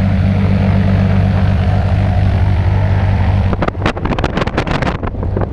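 Piston engine and propeller of a single-engine high-wing light aircraft running on the ground, a steady low drone. A little over three and a half seconds in, gusts of wind start buffeting the microphone in irregular bursts over the engine.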